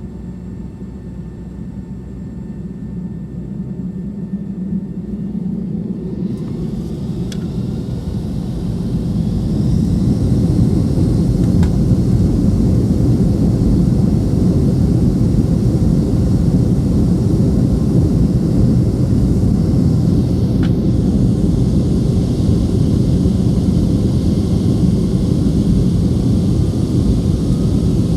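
Boeing 757-200 jet engines heard from inside the cabin, spooling up to takeoff thrust: a rising whine and a rumble that swells over the first ten seconds or so. The engines then hold a steady, loud rumble.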